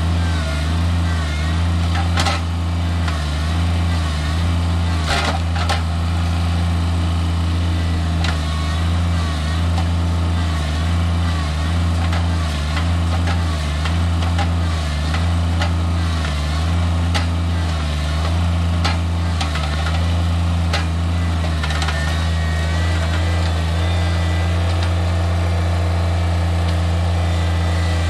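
Kubota BX sub-compact tractor's three-cylinder diesel engine running under load as its hydraulics work a stump bucket into a tree stump, the engine note dipping again and again as the load comes on. A few sharp knocks from the bucket against the stump and roots stand out, the clearest about two and five seconds in.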